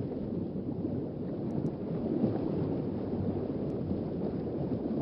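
Underwater ambience: a steady, low wash of water noise with no distinct events.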